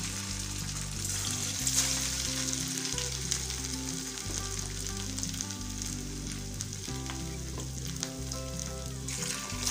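Raw banana cutlet patties shallow-frying in hot oil in a stainless steel kadai: a steady sizzle of oil bubbling around the patties.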